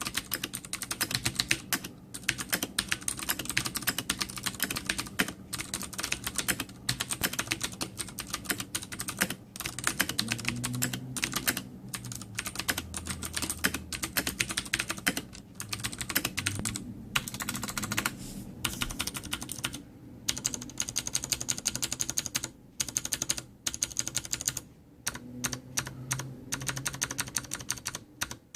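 Fast typing on a Ducky Zero Zone mechanical keyboard with clicky Cherry MX Blue switches: a dense run of sharp key clicks, with a few brief pauses.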